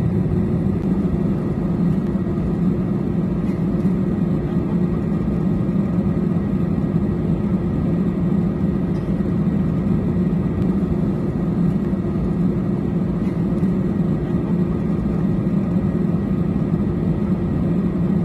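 Jet airliner cabin noise while taxiing after landing: a steady low rumble with a constant hum from the engines at low power.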